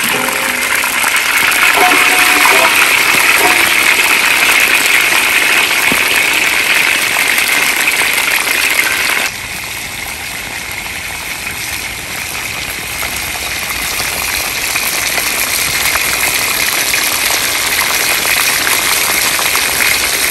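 Chicken pieces deep-frying in hot oil in a wok, a loud, steady sizzle. About nine seconds in the sizzle drops suddenly in level, then slowly builds again.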